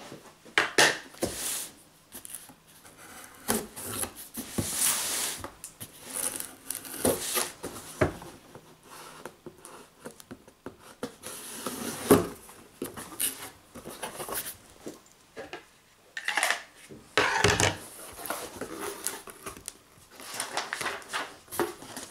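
Packing tape on a cardboard box being slit with a knife and the cardboard flaps pulled open: irregular scraping, tearing and rustling with a few sharp knocks.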